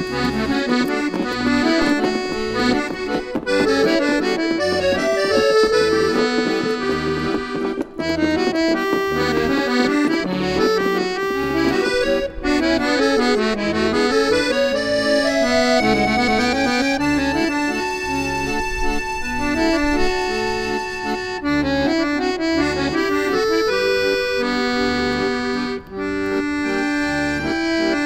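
Soundtrack music: an accordion playing a melody over steady repeating bass notes.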